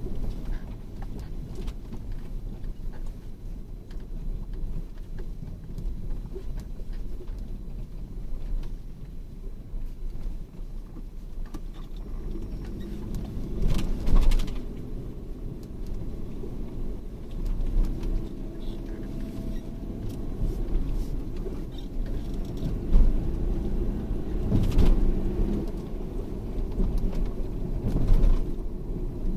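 Motor vehicle driving slowly over a rough forest track, a steady low engine and road rumble with occasional knocks and jolts, the strongest about halfway through and again near the end.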